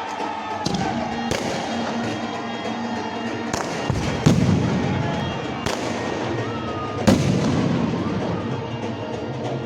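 Fireworks bursting overhead: a string of about seven sharp bangs with echoing tails, the loudest about four seconds in and about seven seconds in, with music playing throughout.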